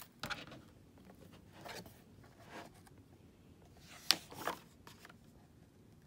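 Hardcover picture book being opened and its pages handled on a table: soft paper rustling and sliding, with one sharp tap about four seconds in.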